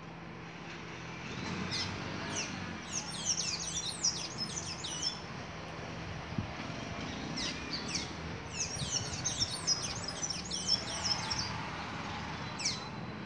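Caged azulejo songbird singing: two bouts of rapid, high twittering notes, each several seconds long, and a single high note near the end.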